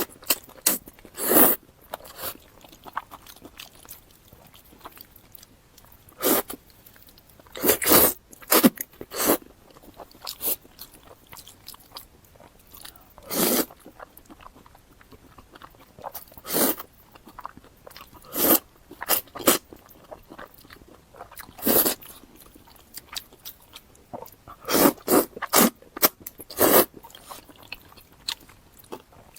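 Close-miked eating sounds: bites and chewing, heard as short crisp mouth noises in irregular clusters every few seconds.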